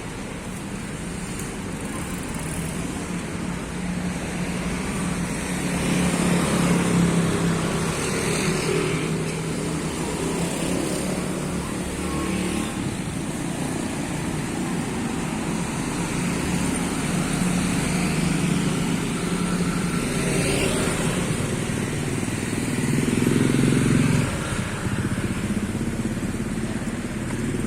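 Street traffic: motor vehicles running and passing, a steady engine and tyre hum that swells as vehicles go by, loudest around seven seconds in and again just before the end.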